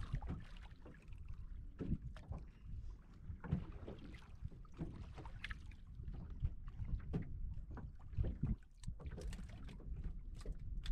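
Water lapping and slapping against the side of a small wooden boat, with wind rumbling on the microphone and irregular small knocks and clicks.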